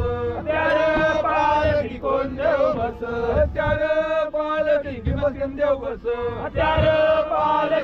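A group of men's voices chanting, with low thuds beneath the voices.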